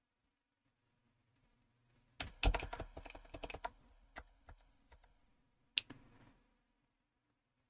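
Typing on a computer keyboard: a quick run of keystrokes starting about two seconds in, then a few separate key presses, one sharper click near the end of the typing.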